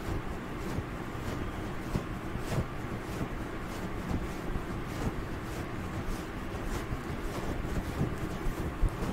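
Long fingernails scratching and rubbing fluffy grey fur right against the microphone, a continuous dense rustle broken by many quick scratch strokes.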